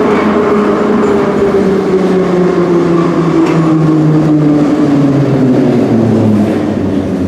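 Soviet-built Ezh3/Em-508T metro train running through the tunnel, its traction motor and gear whine falling steadily in pitch as the train slows for the next station.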